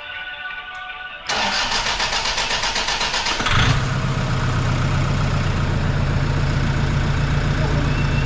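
Rebuilt Toyota 1KD-FTV four-cylinder turbodiesel being started: the starter cranks it with a fast regular beat for about two seconds, then it fires about three and a half seconds in and settles into a steady idle.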